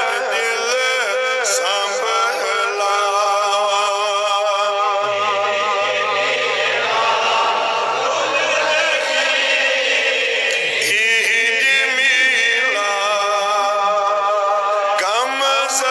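A man's solo voice singing a Kashmiri naat, an Islamic devotional hymn, into a microphone. He sustains long, wavering notes that slide between pitches, and his voice runs on without a break.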